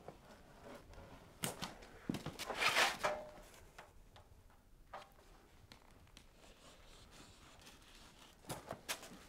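Hilmor Pocket Brake hand tool pressed and pushed along a line on a galvanized steel sheet lying on cardboard, creasing a cross brake. Scattered clicks and scrapes of the metal and tool, the loudest a short rasp about three seconds in, and a few more ticks near the end.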